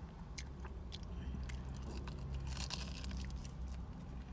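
Close-up chewing and crunching of food in the mouth, irregular crackles over a steady low hum.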